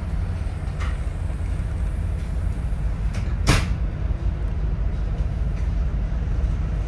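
Steady low rumble of a SEPTA regional rail car rolling along, heard from inside the passenger car, with one sharp clunk about three and a half seconds in and a lighter click shortly before one second.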